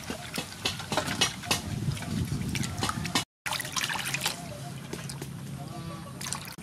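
Water splashing and dripping in a metal basin as large sea snails are rubbed and rinsed by hand: a run of irregular splashes and trickles, broken by a brief gap of silence about halfway through.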